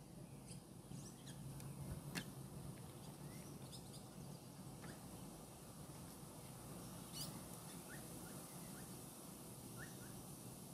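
Faint, scattered short bird chirps over a steady background hiss, with two sharp clicks, about two seconds in and about seven seconds in.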